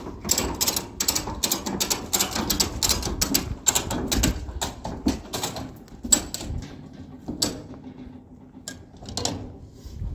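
Rapid mechanical clicking: quick runs of strokes that thin out to sparse single clicks after about five seconds.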